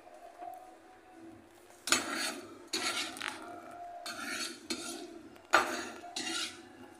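Metal scoop scraping diced fruit out of a stainless steel tray: about half a dozen short scrapes and clatters starting about two seconds in.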